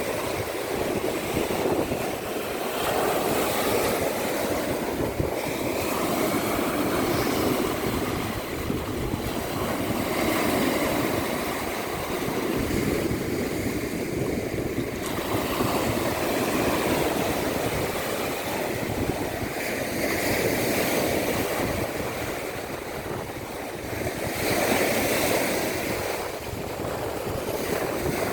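Baltic Sea surf washing onto the shore, a continuous rush that swells and ebbs every few seconds, with wind buffeting the microphone.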